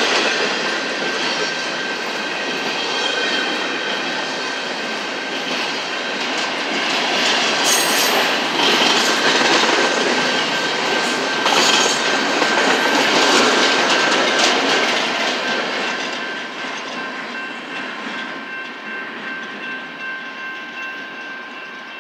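Freight train of empty intermodal well cars rolling past: steel wheels clattering over the rail joints, with the cars rattling and clanking and a thin steady high tone over it all. The sound fades over the last few seconds as the end of the train draws away.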